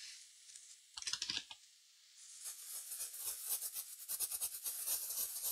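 A small brush scrubbing a freshly reballed BGA chip held in its reballing holder, cleaning it after reflow: a short scrape about a second in, then a steady run of quick scratchy strokes starting about two seconds in.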